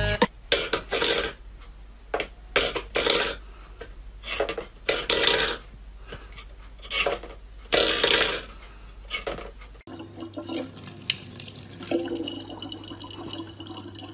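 A series of short noisy bursts at irregular intervals. About ten seconds in, they give way to a tap running steadily in a thin stream.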